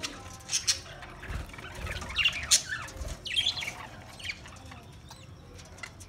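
A flock of budgerigars chirping and chattering in clusters of short, quickly rising and falling calls, with some wing flapping.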